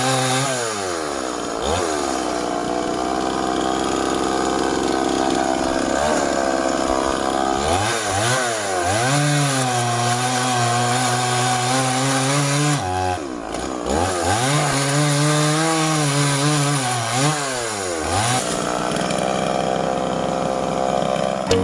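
Stihl two-stroke chainsaw running hard while cutting wood, the engine pitch sagging and climbing back several times as the chain works through the cut.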